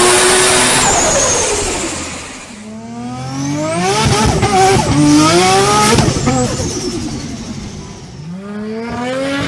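Turbocharged car engine pulling hard at high revs, its pitch climbing and dropping in steps with the gear changes. Short bursts of turbo flutter come as the throttle closes. The engine sound fades in the first couple of seconds, then builds again through the shifts, and a fresh rise starts near the end.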